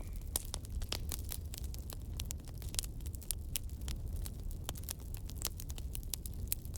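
Fire burning in a fireplace, crackling with many sharp pops and snaps, several a second, over a low steady rumble.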